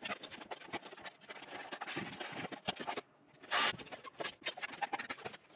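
Scraping and rubbing with scattered small clicks, from hands and tools handling parts in an engine bay. About three and a half seconds in comes a short, louder rasp.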